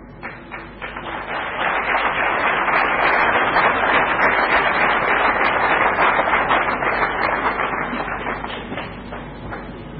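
Audience applauding: a few scattered claps at first, swelling into full steady applause and tapering off toward the end.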